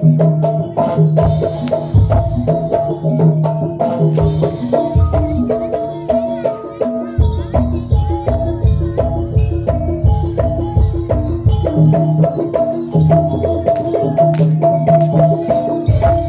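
Jaranan gamelan music: hand drums beating under a short, repeating metallic melody of tuned gong-chimes, with brief cymbal splashes. The drumming grows denser about seven seconds in.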